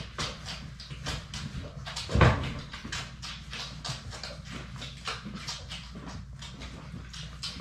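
Labrador retriever puppies nursing from their mother: rapid, irregular wet suckling clicks, several a second, with one louder short sound about two seconds in.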